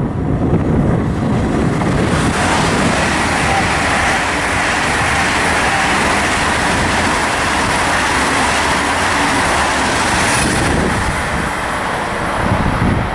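Two coupled ICE T high-speed electric multiple units passing at speed: a loud, steady rush of wheels on rails and air that builds about two seconds in and falls away near the end.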